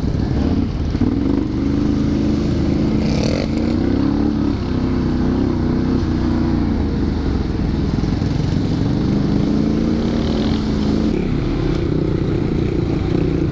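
Can-Am Renegade 1000 XXC ATV's V-twin engine running under throttle on a trail ride, its pitch rising and falling several times as the revs change. A short rush of hiss comes about three seconds in.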